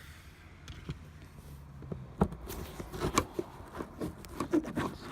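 Plastic interior trim panel being pried against its tight clips: irregular clicks, taps and creaks, sparse at first and coming thicker from about two seconds in.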